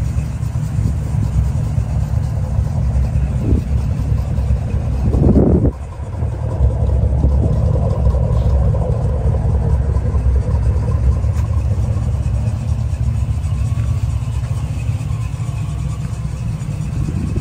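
1973 Chevrolet Corvette's V8 engine running with a deep, steady rumble under way. A brief surge about five seconds in ends in a short sharp drop in level.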